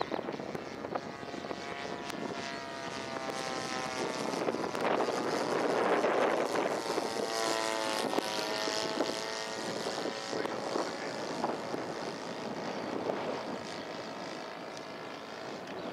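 Radio-controlled model NDN Firecracker's engine and propeller droning in flight, growing louder as it comes in, then dropping in pitch as it passes overhead about eight seconds in, and fading away.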